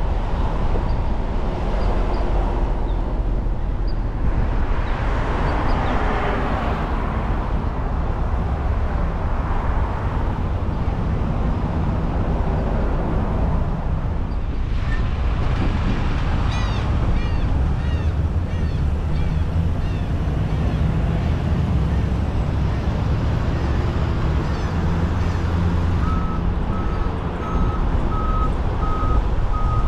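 Car driving along a road: a steady low rumble of engine and tyres with road noise throughout. Near the end comes a row of short electronic beeps, evenly spaced at about two a second.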